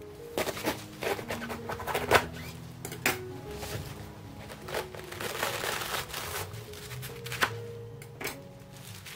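A knife crunching into the base of a napa cabbage on a wooden cutting board, a quick run of crisp cracks and knocks, loudest about two seconds in. Midway, the cabbage leaves rip as the head is pulled apart by hand, followed by a couple of single knocks. Soft background music plays throughout.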